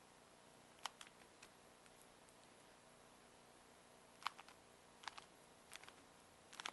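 Rubik's Cube being turned by hand: scattered sharp plastic clicks and clacks, a few at a time in small clusters, over faint room hiss.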